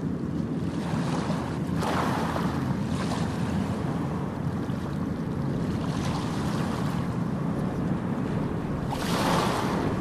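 Sea surf breaking and washing up a sandy beach: a steady rumble of waves, with two louder washes of surf about two seconds in and near the end.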